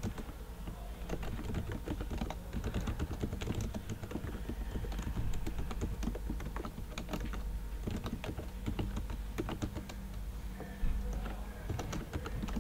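Typing on a computer keyboard: an irregular, continuous run of keystroke clicks over a low steady hum.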